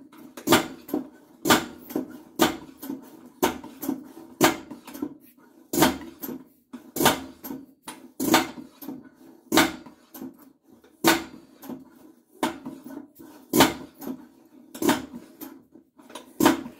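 The hand pump of an Optimus stainless-steel double-burner kerosene marine stove being worked in steady strokes, about fourteen short sharp strokes a little over a second apart that slow slightly toward the end, pressurising the fuel tank.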